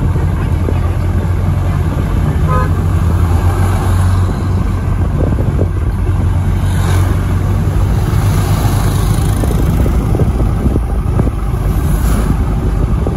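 Steady low engine hum and road noise of a moving road vehicle.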